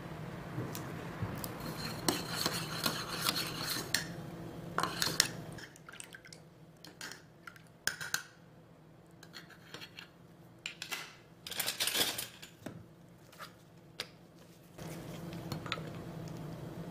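Metal measuring spoon clinking and scraping against a small stainless steel cup as a soy sauce and syrup braising mix is stirred, in several separate clusters of clinks.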